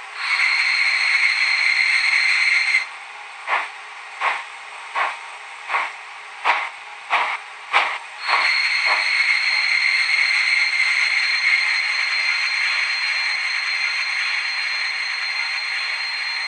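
Onboard sound of a model steam locomotive: a steady hiss of steam for about three seconds, then about nine exhaust chuffs, a little faster towards the end, then a long steady steam hiss that slowly grows quieter.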